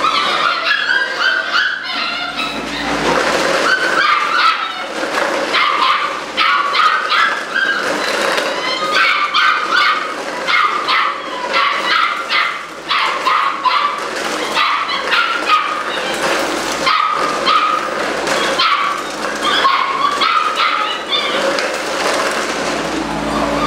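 A litter of young Belgian Malinois puppies yipping, barking and whining together: many short overlapping calls in quick succession.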